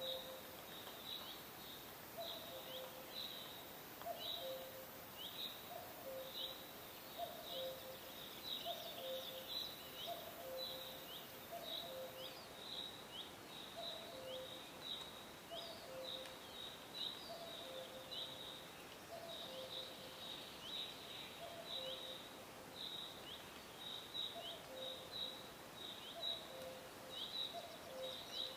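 Birds calling outdoors: a low two-note call repeated about once a second, over frequent short, high, downward-sliding chirps.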